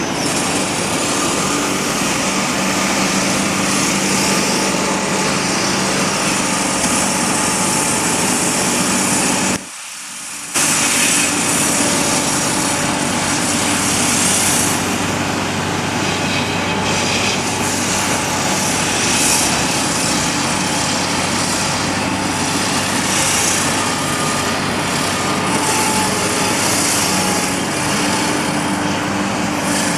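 JCB backhoe loader's diesel engine running steadily under work. The sound drops out briefly about a third of the way in, then carries on.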